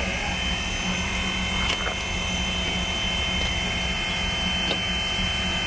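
Small engine-driven track maintenance machine running steadily with an even buzzing drone and a constant high whine, with a few faint clicks.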